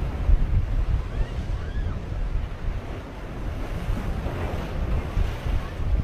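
Sea waves splashing against and breaking over a small motorboat's hull in rough water, with strong wind buffeting the microphone in gusts.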